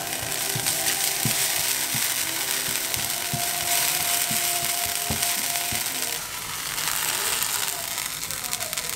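Chopped scallions sizzling in hot oil in a nonstick frying pan, with repeated clicks and taps of silicone tongs stirring them against the pan.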